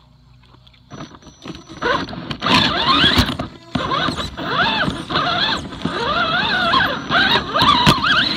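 RC rock crawler's electric motor and gears whining, rising and falling in pitch as the throttle changes while it climbs rocks, with scattered knocks from the chassis and tyres. It starts about a second in.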